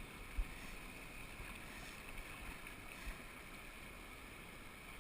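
Steady rushing of a flowing river, with a short low thump about half a second in and a smaller one around three seconds in.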